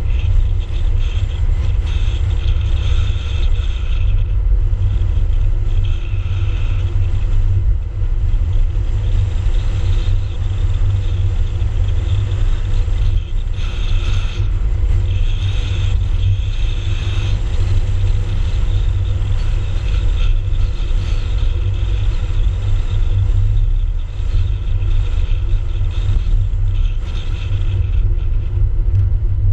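Car driving along an open road, heard from a camera mounted low on the outside of the car: a loud, steady low rumble of wind and road noise.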